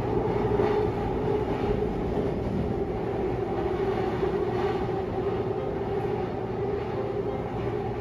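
Subway train running at speed, heard from inside the car: a steady rumble with a constant low hum.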